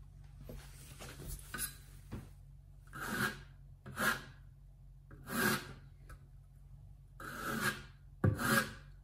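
Notched trowel scraping tile mastic across a backsplash wall in a series of short strokes, each about half a second long. The first strokes are faint, and they grow louder from about three seconds in.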